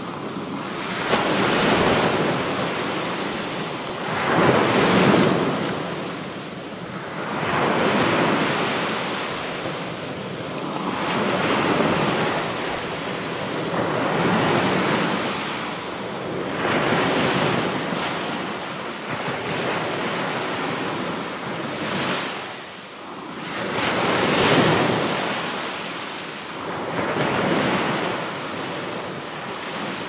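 Ocean surf breaking on a shore, each wave swelling and washing out in turn, about one every three seconds.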